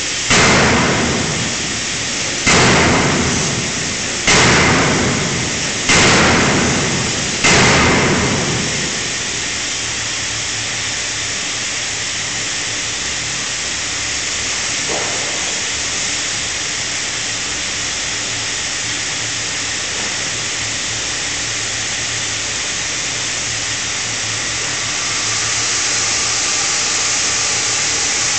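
A 5-ton fully hydraulic closed-die forging hammer striking hot steel five times, about one and a half to two seconds apart, each blow ringing and dying away. Then the hammer stops and a steady hiss and rumble is left, growing a little louder near the end.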